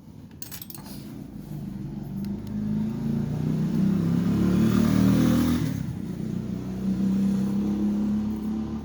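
A vehicle engine running, its sound swelling to a peak about five seconds in and then falling back to a steady hum.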